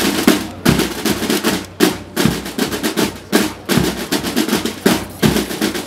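A line of military-style side drums, snare drums, playing a marching cadence together: fast rolls broken by heavier accented beats roughly every half second.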